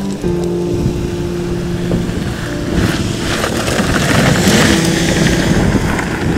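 Camper van engine running under load as the van climbs a steep slope out of a riverbed. A steady engine tone holds for the first couple of seconds, then the sound turns rougher and noisier, with the pitch dropping around five seconds in.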